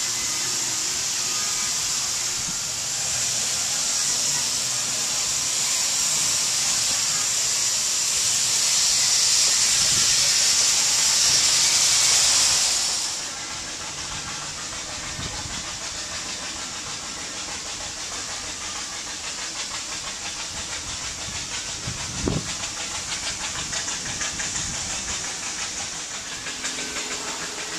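Steady high hiss of escaping steam, growing louder and then dropping away sharply about halfway through and carrying on more quietly. A single dull knock comes about three quarters of the way in.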